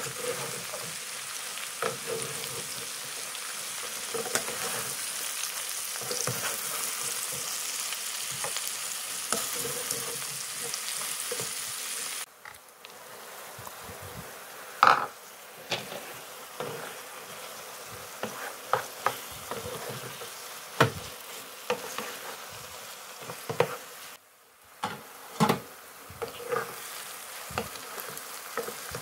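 Potatoes and sliced mushrooms frying in oil in a pan, a steady sizzle. About twelve seconds in the sizzle becomes quieter, and a wooden spatula stirring the pan gives a string of sharp knocks and scrapes against it.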